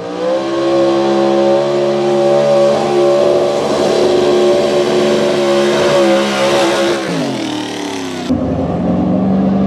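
Gasoline 4x4 pulling truck's engine held at high revs under load during a pull, its pitch steady, then falling away about seven seconds in. Just after, the sound changes suddenly to a lower engine running.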